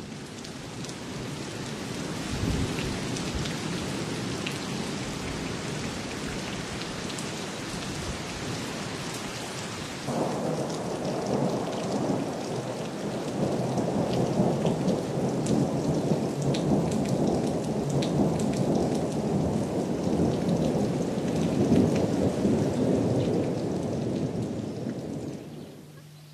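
Rain falling steadily with low rumbles of thunder; about ten seconds in it suddenly grows louder and deeper.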